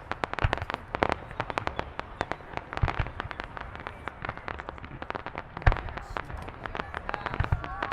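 Fireworks going off: a dense, rapid crackle of many small pops, with a few deeper booms mixed in, the loudest about six seconds in.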